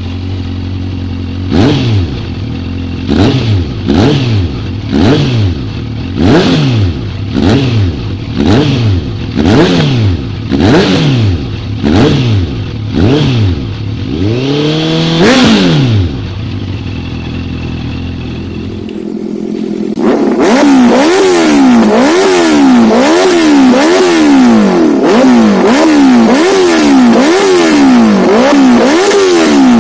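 Honda CBR650F inline-four through a Mivv aftermarket exhaust, idling and blipped sharply about once a second, a dozen or so quick revs. One longer rev falls back to idle. Then, through an SC Project exhaust, the engine is revved up and down continuously and louder, a little faster than once a second, without returning to idle.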